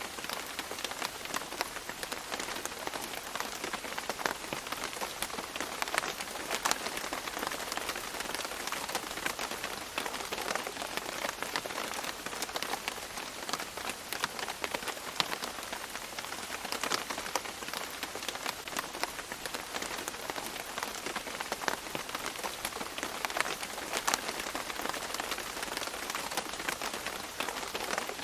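Steady tropical rain falling on leaves, a dense even patter with many individual drops striking and dripping close by.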